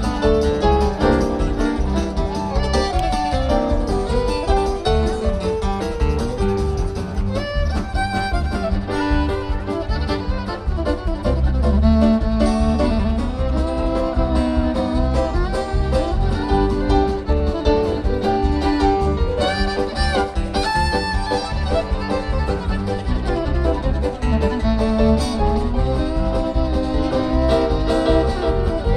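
Instrumental background music in a bluegrass or country string-band style, with fiddle and guitar.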